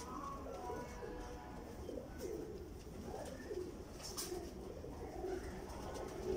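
Tippler pigeons cooing: repeated low, wavering coos from the loft, with a faint click about two seconds in and another about four seconds in.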